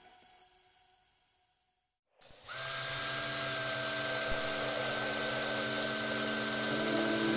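Silence, then about two and a half seconds in a small electric drill starts up and runs steadily, its motor whining as a thin bit drills into a small part held in the fingers.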